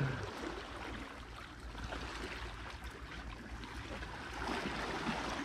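Sea washing against shore rocks: a steady hiss of surf that swells a little near the end.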